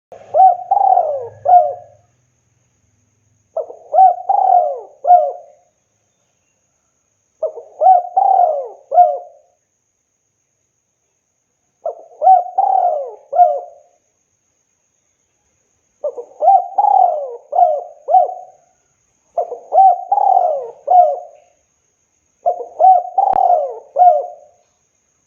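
Spotted dove cooing: seven phrases of several quick coos each, one every three to four seconds, with silence between.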